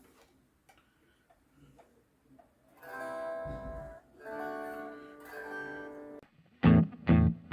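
Guitar strummed without an amplifier: after a few faint handling clicks, three chords ring out about a second each, followed near the end by several short, sharp, louder strums.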